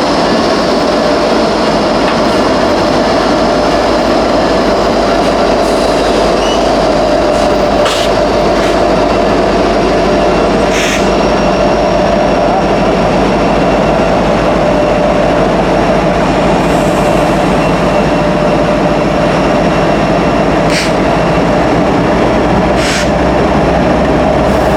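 CN freight train rolling past at close range: a steady loud rumble of steel wheels on rail with a steady whine running through it, broken by a few sharp clicks.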